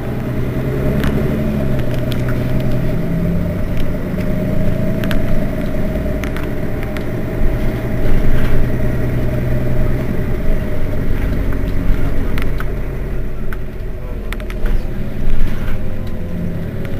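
Mercedes-Benz Citaro city bus engine idling steadily while the bus stands at a stop, with a steady whine above the engine note and a few light clicks.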